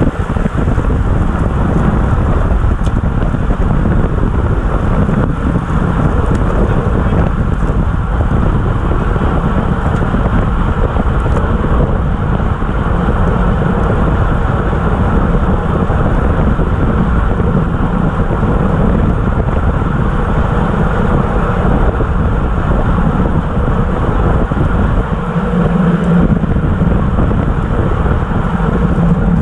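Steady, loud wind rush on a bike-mounted camera's microphone, with road noise from a road bike ridden at about 25 to 30 mph.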